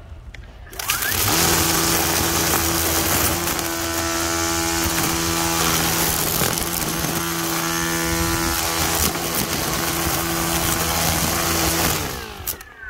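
Ryobi 40V HP brushless cordless string trimmer spinning up about a second in, then running at speed with a steady electric-motor hum and the hiss of the whirling head cutting through grass and weeds. Near the end it is released and winds down, falling in pitch.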